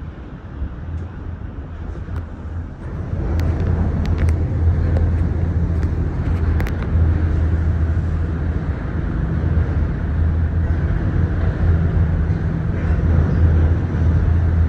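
Steady low rumble and hum of a Disney Skyliner gondola cabin in flight, heard from inside the cabin. It grows louder about three seconds in, with a few faint clicks soon after.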